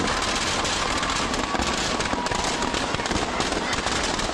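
Dense, continuous crackling and popping of many firecrackers going off inside burning Dussehra effigies.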